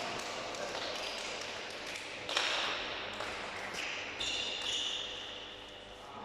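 Handball players slapping hands in a pre-match high-five line in a reverberant sports hall: a run of sharp slaps and taps, the loudest a little over two seconds in, with a brief high squeak a little after four seconds in.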